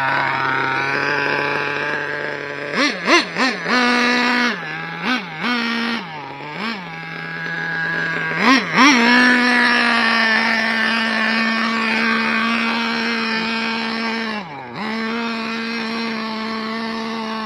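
Dynamite .26 nitro engine with a tuned pipe in a Kyosho Inferno 1/8 buggy, idling and then blipped up and down several times from about three seconds in. From about nine seconds it holds a steady higher speed as the buggy drives, dipping briefly once near the end.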